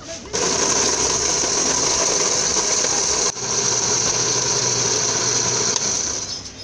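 Countertop electric blender (National Super Blender) running, its motor chopping fresh red peppers into a liquid. The motor comes on about a third of a second in, breaks off for an instant just past halfway, runs on, then winds down near the end.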